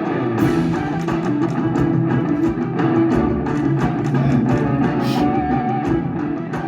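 Guitar-driven rock-style game music from an IGT Greek Lightning video slot machine, with a couple of brief hissing sound effects over it.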